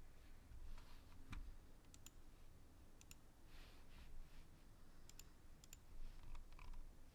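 Faint computer mouse clicks, several in quick pairs, over faint room hum.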